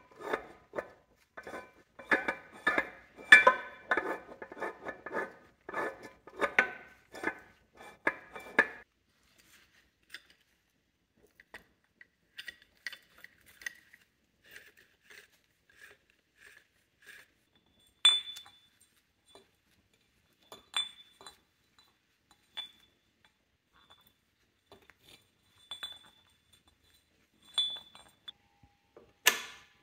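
Steel parts of a Mercedes G W463 transfer case's high/low selector mechanism clicking and clinking as the selector is turned and handled by hand: a dense run of clicks for about the first nine seconds, then scattered single clinks, some with a short metallic ring.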